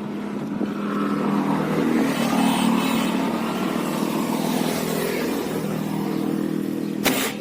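Motor vehicle engine running, swelling louder and then easing off, over a steady hum. A single sharp shot from a pellet rifle cracks near the end.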